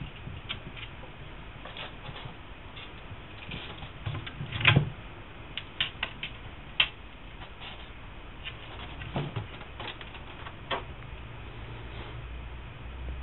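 Kittens' paws scampering and landing on a tabletop: scattered light taps and scratches, with one louder thump a little before halfway and a quick run of sharp taps soon after.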